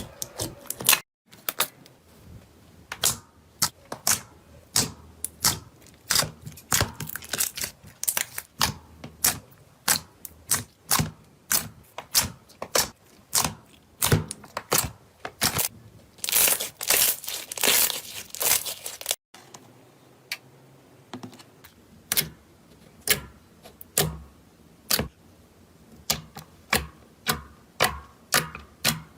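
Slime being squeezed, poked and stretched by hand, giving sharp clicks and pops a few times a second, with a denser crackling run just past the middle. The sound breaks off abruptly twice.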